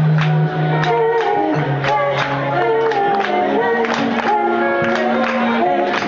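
Live Haitian band music: voices singing over a steady drum beat, with a sustained bass line and other melodic instruments.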